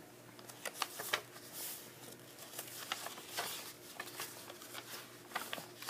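Paper pages and card of a handmade junk journal being turned and handled: soft rustles and scattered light taps and clicks, over a faint steady hum.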